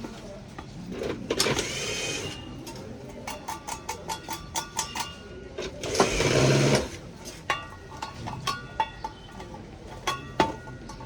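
Metal parts and tools clinking and tapping, many sharp clicks that ring briefly. Two louder, rougher bursts of a small mechanism come about a second in and about six seconds in.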